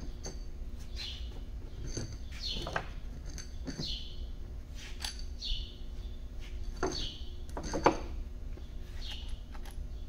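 A small bird chirps over and over, short calls that fall in pitch, about one every second and a half. Sharp metallic clicks come through it as camshaft cap bolts and caps are lifted off an aluminium cylinder head and set down, the loudest one near the end.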